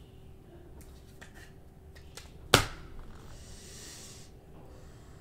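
Trading cards being handled on a table: a few light clicks, a sharp slap of cards against the table about halfway through, then a soft swish of cards sliding for about a second.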